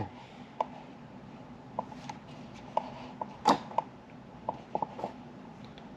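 Computer mouse clicking: about a dozen short, sharp clicks at irregular intervals, one louder than the rest about halfway through, over a faint steady hum.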